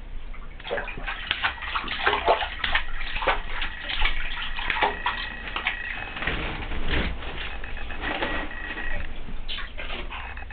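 Bathwater splashing and sloshing in a tub in quick irregular slaps, as a baby in a bath seat smacks and stirs the water with his hands.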